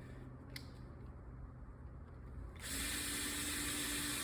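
Small cordless drill running steadily, driving in a deadbolt mounting screw; it starts about two and a half seconds in, after a quiet stretch.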